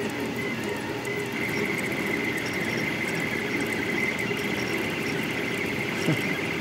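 Delta Rostock 3D printer's stepper motors whining steadily as the effector darts about during a fast print, with a high-pitched squeal over the running noise. A short falling chirp comes near the end.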